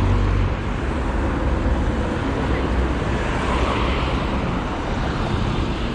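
City road traffic passing: a steady rumble and hiss of car engines and tyres on the road.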